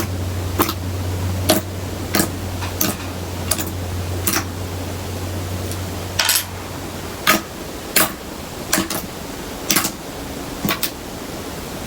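Glue slime being handled and pressed, giving irregular sticky clicks and small air-bubble pops, about one to two a second, over a steady hiss. A low hum runs underneath and fades out about seven seconds in.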